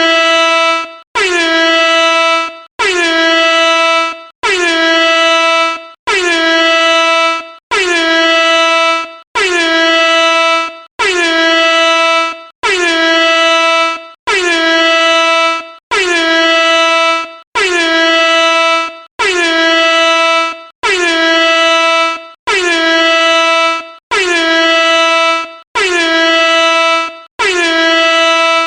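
Air horn sounding loudly in a long run of identical blasts. Each blast lasts about a second and a half, with a short break before the next, at an even pace. Each blast dips slightly in pitch as it starts, then holds a steady, brassy tone.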